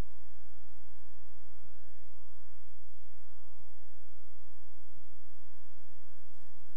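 Steady electrical hum with a buzz of many overtones, unchanging throughout.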